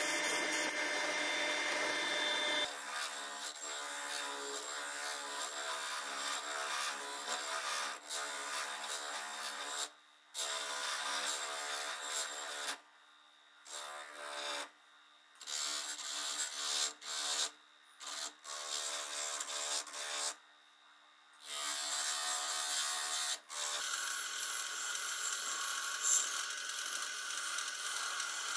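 Sandblasting in a blast cabinet, a steady hiss, for the first couple of seconds. Then an electric buffing wheel runs with a steady hum while brass parts are rubbed against it, broken by several short drops to near silence. Near the end a different, hissier buffing wheel runs.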